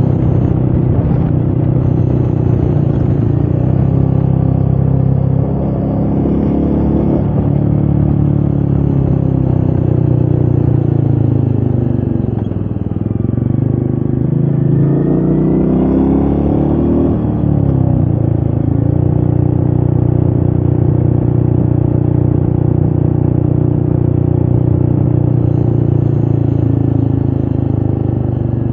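Royal Enfield Meteor 350's single-cylinder engine running under way at a steady pitch. About twelve seconds in the pitch dips, then climbs for a few seconds as the bike revs up, drops back, and settles again.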